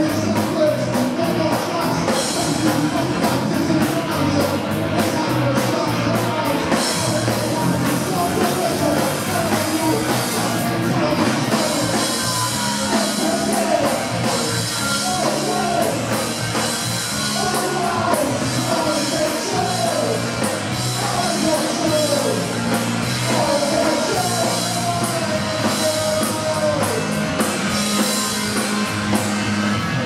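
Punk rock band playing live: electric guitars and drums with a singer's voice over them, the voice clearest in the second half.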